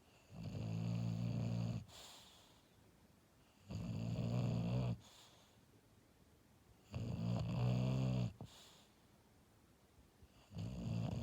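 English bulldog snoring in its sleep: a snore of about a second and a half every three seconds or so, four in all, each followed by a brief softer breath.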